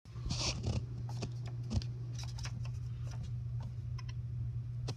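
HP OfficeJet 5740 inkjet printer running with a steady low hum and many scattered clicks and ticks from its mechanism, with a brief rustle of paper near the start.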